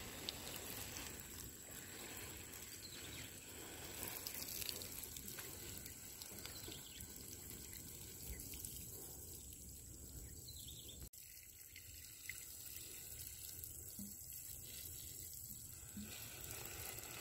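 Water spraying from a plastic watering can's sprinkler rose onto bare soil, faint and steady, with a brief break about eleven seconds in.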